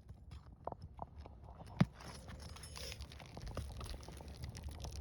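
A steel roofing bar prying and scraping under brittle asphalt shingles, with small crackles and clicks as the shingles give, and one sharp knock a little under two seconds in.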